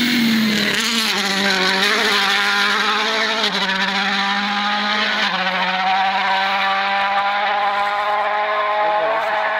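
Toyota Yaris WRC rally car's turbocharged 1.6-litre four-cylinder engine at full throttle as the car passes close and pulls away, its note dropping as it goes by and then shifting in steps a few times as it accelerates.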